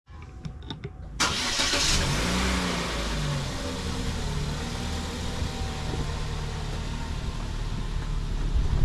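A car engine running, coming in abruptly about a second in and then holding steady.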